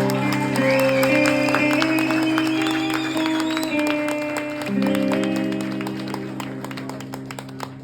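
Live band holding long sustained chords at the end of a song, the chords ringing out and slowly fading, with scattered clapping from the audience.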